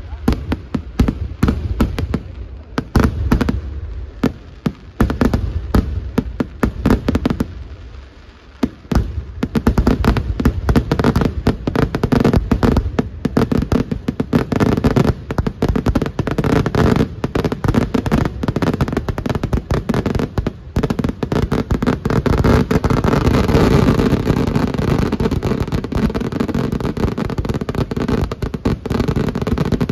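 Daytime fireworks barrage: a rapid volley of explosions and crackling bursts. It thins out briefly about eight seconds in, then builds into a dense, almost continuous barrage.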